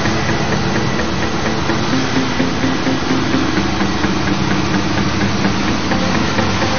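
Farm tractors' diesel engines running steadily as the tractors drive slowly past in a line, a large green John Deere passing close by.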